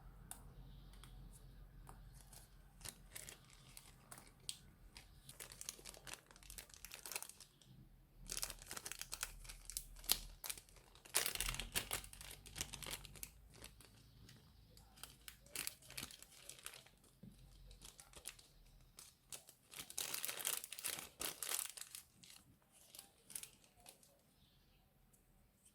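Plastic bag crinkling as it is squeezed and worked with slime inside, in irregular crackly bursts. The bursts are loudest about a third of the way in and again a little past the three-quarter mark.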